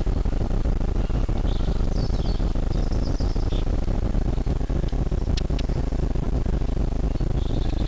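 Steady low rumbling noise with a few faint bird chirps over it, mostly in the first half, and a couple of short ticks about five seconds in.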